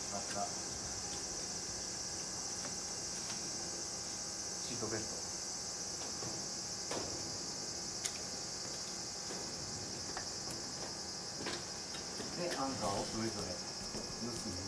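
Steady high-pitched drone of insects, with a few faint clicks and knocks from a wheelchair being handled.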